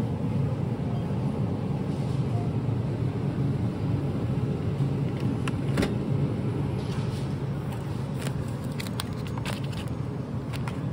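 Steady low rumble of a moving vehicle, with light clicks and ticks scattered through it.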